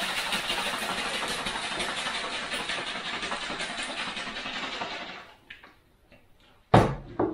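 Kitchen tap running into a plastic shaker bottle, a steady rush of water for about five seconds before it is turned off. A sharp knock follows near the end.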